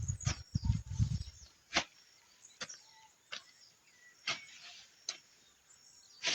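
Hand hoe chopping into soft, damp soil and weeds in a steady rhythm, a sharp strike about once a second, with birds chirping faintly in the background. A low rumble runs through the first second or so.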